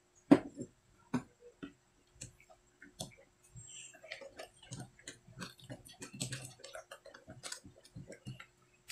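Irregular clicks and taps with soft mixing noise as crushed peanuts are worked into a thick cocoa and rice-flour batter by hand in a plastic bowl; the sharpest tap comes right at the start.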